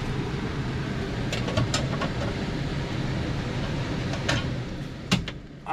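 Heat pump indoor air handler running: a steady rush of air from the blower with a low hum. A few light clicks and knocks come from handling nearby, the last about five seconds in.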